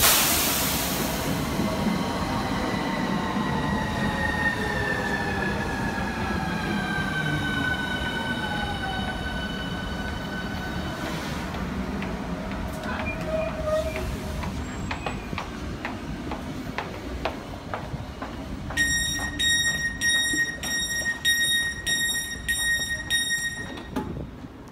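Southeastern Class 395 Javelin electric train braking into the platform: a rush of passing train noise and a whine from its traction equipment that falls in pitch as it slows, then a scatter of clicks as it comes to a stand. Near the end a pulsing electronic beep repeats about twice a second, the train's door signal.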